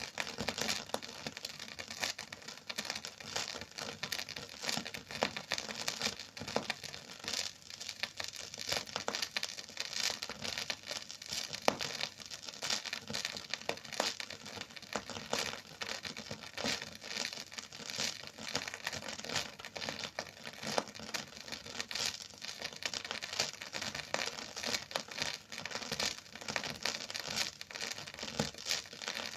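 Record surface noise with no music: a dense, steady crackle of small clicks and pops over a light hiss, with one louder pop about twelve seconds in.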